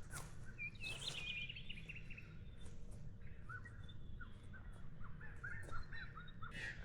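Birds chirping: a quick twittering burst about a second in, then a run of short rising chirps near the end, over a steady low rumble.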